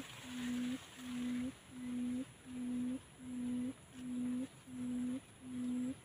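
Decoy quail in a trap cage giving a steady series of low, hollow hooting notes, about eight in a row, roughly one and a third a second. Each note ends with a slight upturn. It is the lure call meant to draw wild quail to the trap.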